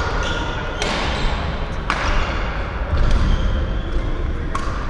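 Badminton rackets striking a shuttlecock: sharp cracks about a second apart, then another near the end, each ringing briefly in a large echoing hall.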